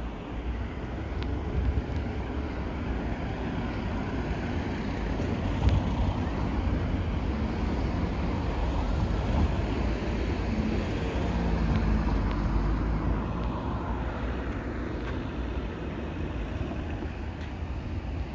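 Town street ambience: a steady low rumble of distant traffic, with a faint engine hum that swells and fades around the middle.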